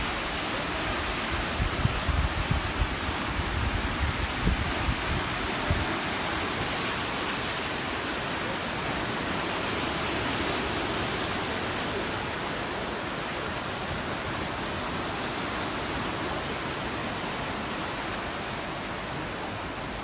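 Sea surf washing and breaking over shoreline rocks, a steady rushing noise. During the first six seconds or so, wind buffets the microphone in uneven low rumbles.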